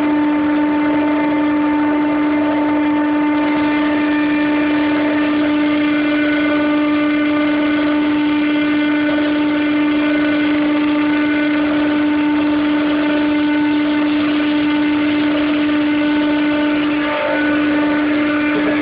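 Compressor of a McQuay/Daikin EWLDJ235-SS chiller running with a loud, steady tonal hum and higher overtones, the strange sound the owner is recording. The tone breaks off for a moment near the end.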